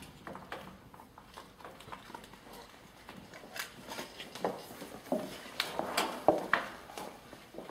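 Irregular clicks and knocks of a laptop and cables being handled on a wooden table, busier and louder in the second half.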